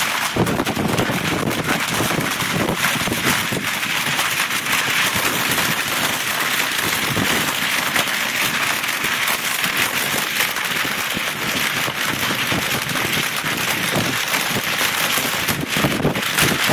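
Hurricane storm wind and rain: a loud, steady rushing hiss with constant fine crackle, which holds level throughout.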